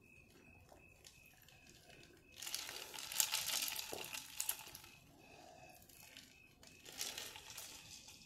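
Paper wrapper crinkling and rustling in two spells: a longer one starting about two seconds in, and a shorter one near seven seconds.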